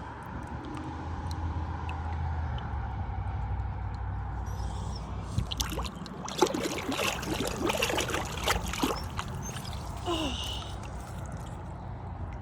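Water trickling and splashing over a low rumble that fades out about six seconds in, with a run of short sharp clicks and knocks in the second half.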